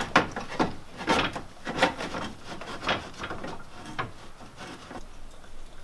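Irregular knocks, clicks and rubbing of plastic and metal parts as a car radiator is worked loose from its mounts by hand. The handling is busiest in the first four seconds, then dies down.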